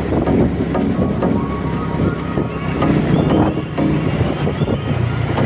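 Motorcycle riding along a road, its engine running steadily under wind buffeting the microphone.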